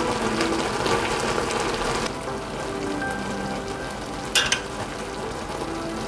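Jjapaghetti noodles sizzling and crackling in their sauce in a pot, loudest for the first two seconds and then a little quieter. A single sharp click about four and a half seconds in, as the small glass truffle-oil bottle is handled.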